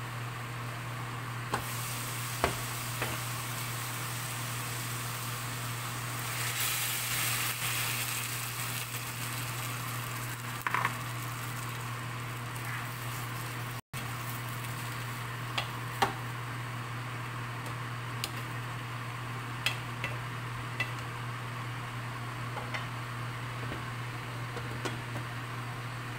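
Chicken livers, carrots and onions sizzling in a stainless steel pan while a spatula stirs them, with scattered clinks and scrapes of the spatula on the pan. The sizzle grows louder for a few seconds about a quarter of the way in.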